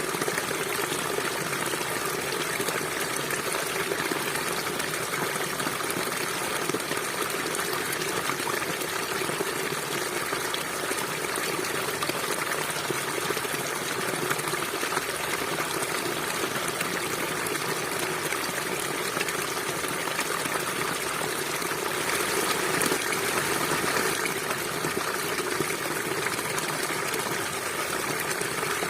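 River water flowing in a steady, continuous rush, briefly a little louder about two-thirds of the way through.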